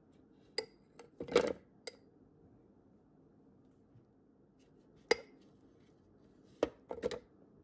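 Pieces of chopped tomato and red bell pepper dropped into a plastic food processor bowl, tapping and clattering against the bowl and blade. A cluster of knocks comes about a second in, a single sharp tap about five seconds in, and two more knocks near the end.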